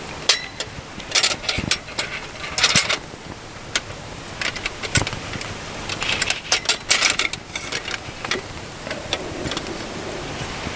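Irregular clicks, clinks and short scrapes of small hard objects being handled. A steady rushing noise comes up near the end.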